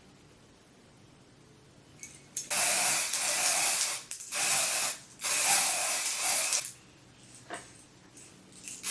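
Hair spray hissing onto wig lace in two long blasts of about a second and a half each, with a third starting near the end.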